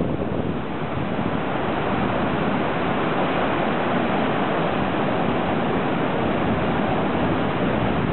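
Heavy surf breaking and rushing ashore, with wind buffeting the microphone: a steady, even rush of noise with no distinct engine note.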